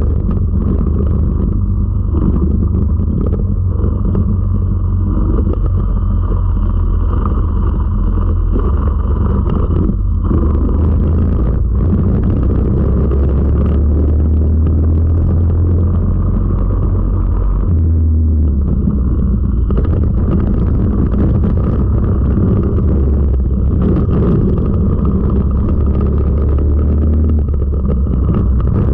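Four-stroke racing kart engine running hard at race pace, heard from the kart's own onboard camera. Its note shifts several times, most clearly about eighteen seconds in.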